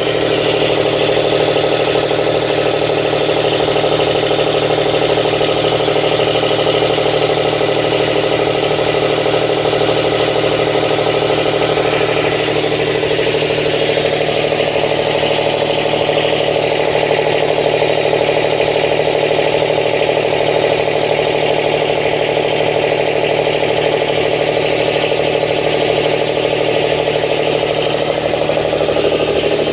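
Yacht generator engine running steadily, with a hum of several even tones; its note shifts slightly about twelve seconds in.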